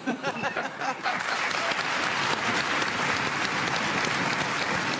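Applause from a studio audience and the people at the table, with a few voices at the start; the clapping swells in about a second in and carries on steadily.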